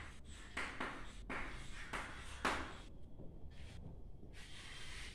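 Chalk writing on a blackboard: an irregular series of short scratchy strokes as figures and words are written.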